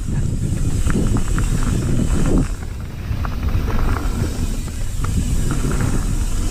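Mountain bike riding down a dirt trail: a steady low rumble of tyres on the ground and wind on the handlebar camera's microphone, with scattered clicks and rattles from the bike over bumps.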